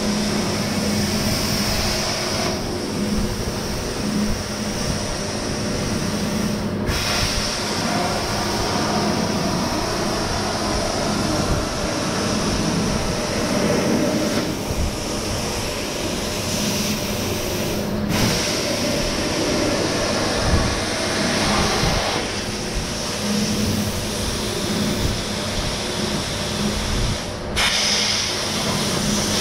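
Plasma cutter cutting through the steel of a car's rear quarter panel: a steady hiss of arc and air over a low hum. The hiss comes and goes in stretches and breaks off abruptly a few times.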